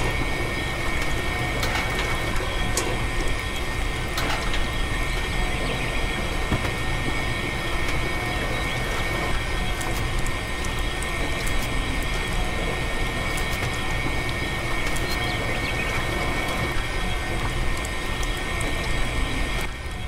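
Steady machine noise with a thin, constant whine and a wash of hiss, like a small motor or pump running, with a few faint clicks.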